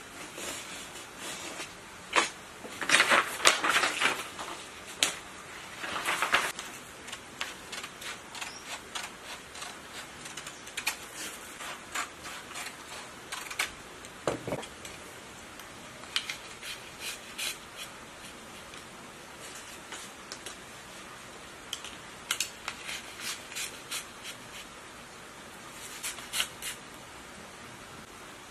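Stiff paper rustling loudly as it is unrolled and handled, then a long run of short, sharp scissor snips cutting small pieces of paper, with light paper handling between them.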